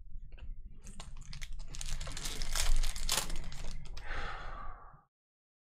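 Foil wrapper of a Panini Prizm hobby pack crinkled and torn open by hand: a dense run of sharp crackles and rips, then a short hiss as the wrapper is pulled away, cutting off suddenly near the end.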